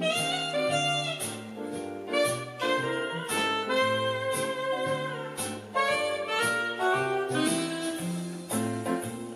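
Background music: an instrumental tune with a bass line and a steady beat.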